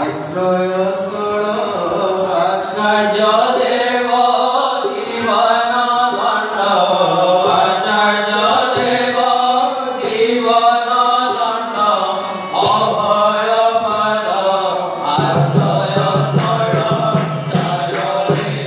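Voices chanting a nam kirtan, a devotional Hindu chant sung to a rising and falling melody, over light percussion strokes. The sound grows fuller and deeper near the end.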